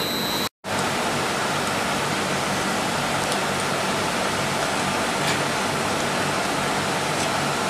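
Twin-screw extruder running, a steady machine noise with a low hum, cut off for an instant about half a second in.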